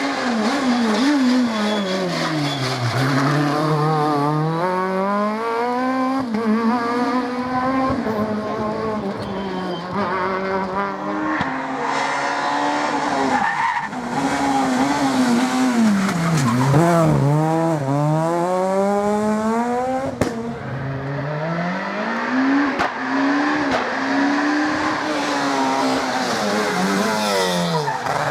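Rally car engines driven hard, the engine note repeatedly climbing as the car accelerates and dropping on gear changes and braking. The sound changes abruptly midway and again about two-thirds through, as from one car to another.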